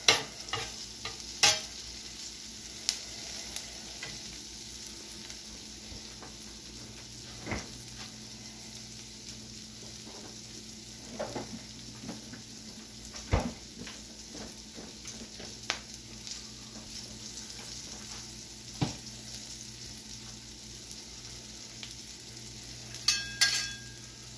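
Sliced peppers and onions and a kielbasa frying on a steel flat-top griddle: a steady sizzling hiss with scattered pops. Metal spatula clicks and scrapes on the griddle near the start and again near the end.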